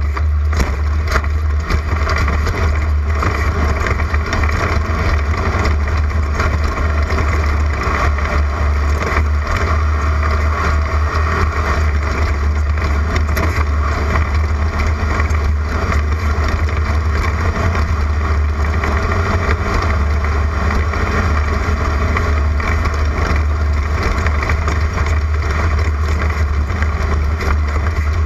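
A Class 11 stock Volkswagen Beetle's air-cooled flat-four engine running hard at race speed, a steady loud drone, with many small knocks and rattles from the car jolting over rough ground.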